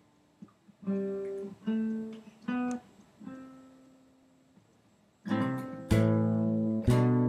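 Acoustic guitar music: four single notes picked slowly, the last one left ringing. After a pause, full chords are strummed from about five seconds in, roughly a second apart.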